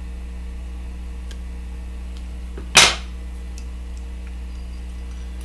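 Small fly-tying tools being handled: a few faint ticks and one sharp click about three seconds in, over a steady electrical hum.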